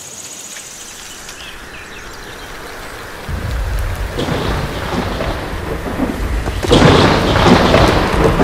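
Thunderstorm: steady rain hiss building up, a low rumble of thunder starting about three seconds in, and a loud thunderclap about two-thirds of the way through.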